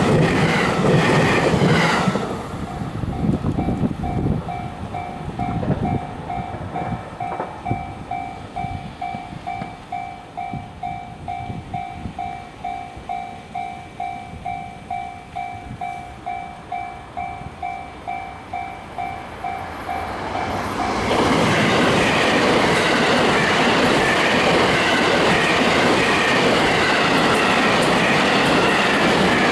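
Japanese railroad crossing alarm ringing with an evenly repeating electronic ding. A train finishes passing about two seconds in, and another train passes loudly from about two-thirds of the way through, its rumble and wheel clatter over the alarm.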